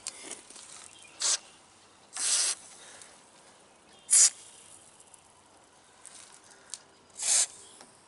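Aerosol can of spray lithium grease hissing in four short bursts through its thin extension tube, working grease down into the joints of a door latch mechanism.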